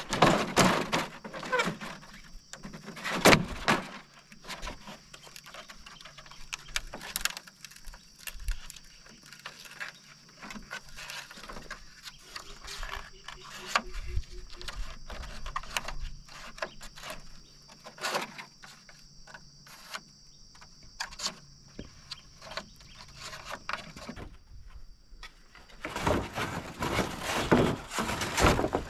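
Hollow bamboo poles knocking and clattering against each other and on stones as they are handled and lashed into a bundle, with scattered single knocks and a longer burst of clatter near the end.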